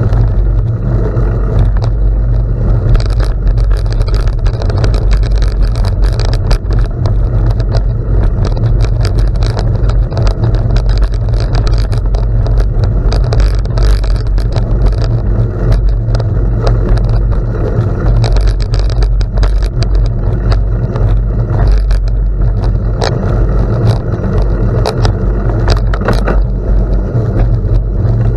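Bicycle riding on a gravel road: a steady heavy wind rumble on the microphone, with tyres crunching over gravel in many sharp little ticks and pings.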